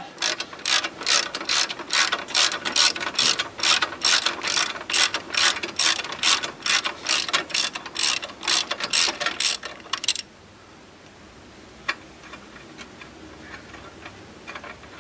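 Hand ratchet wrench clicking quickly and evenly, about four clicks a second, as a bolt is turned on the truck frame; it stops suddenly about ten seconds in, followed by a single click and a few faint clicks near the end.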